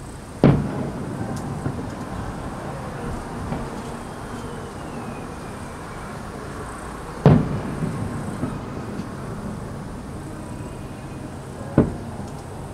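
Aerial fireworks going off: three loud booms with echoing tails, the second about seven seconds after the first and the third, smaller, some four seconds later.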